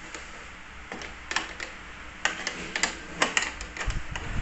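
Pliers clicking and scraping against a metal nut and clamp while a bolt on a child's tricycle push handle is tightened: irregular sharp clicks, coming in quick clusters from about a second in, with a dull low bump near the end.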